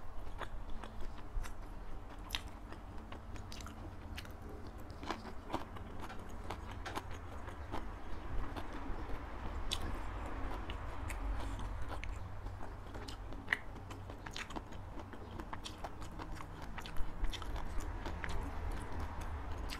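Close-miked chewing and mouth sounds of someone eating, with irregular small crunches and clicks. A low steady hum runs underneath.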